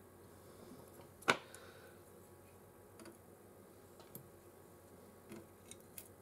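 One sharp snip of hand snips about a second in, cutting away an old capacitor from the Amiga A1200 board, followed by a few faint ticks.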